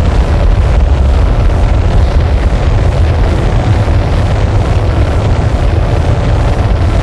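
Noise music: a loud, dense, unchanging wall of distorted noise with a heavy low rumble, with no beat or melody.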